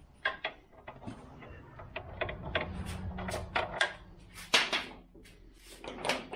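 Irregular metallic clicks and clatter of hand tools, as sockets are tried on a bolt to find its size.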